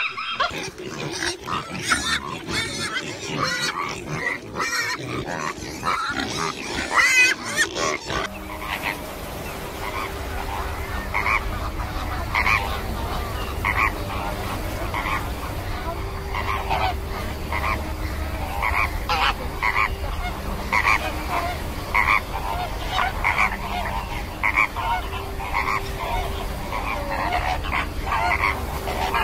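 Flamingos honking: short goose-like calls repeating about one or two a second over a steady low hum. This follows a different, busier stretch of clicks and calls in the first eight seconds or so.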